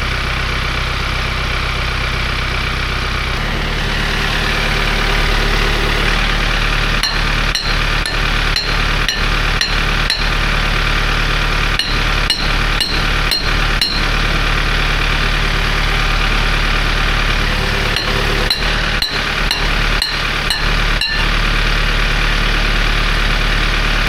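An engine running steadily, its pitch stepping up about three and a half seconds in, with short runs of sharp knocks from about seven seconds on.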